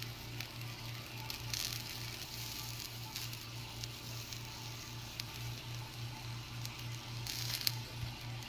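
Faint sizzling from a frying pan on the stove, with a few light taps and scrapes of a metal spoon as diced tomato is spooned onto a tortilla, over a low steady hum.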